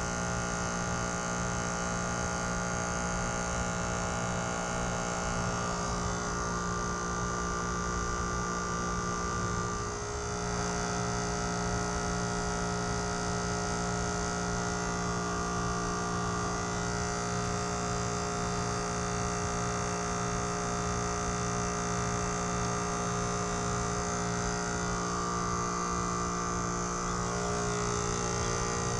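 Trane XR14 heat pump running in defrost mode: the compressor gives a steady multi-tone hum, with a brief dip and shift in the tone about ten seconds in.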